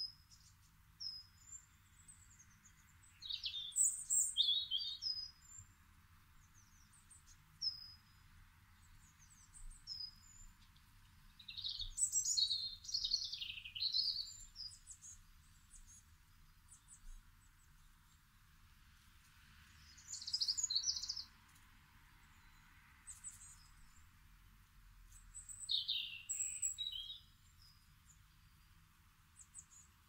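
European goldfinches twittering: four bouts of quick, high chirping notes, each one to three seconds long, with single short chips in between.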